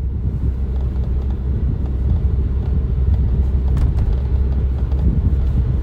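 Steady low road and engine rumble inside the cabin of a 2019 Suzuki Vitara on the move, with a few faint light ticks over it, the clearest about four seconds in.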